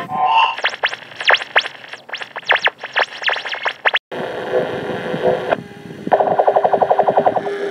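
Music playing from a cassette in a portable cassette player, chopped by hand on the machine: rapid swooping pitch sweeps like scratching, then after an abrupt cut, warbling tones and a fast stutter of about ten repeats a second.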